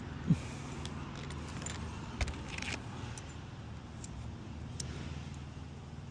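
Hand work on asphalt roof shingles: scattered small clicks, rustles and one sharp knock about two seconds in, over a steady low rumble.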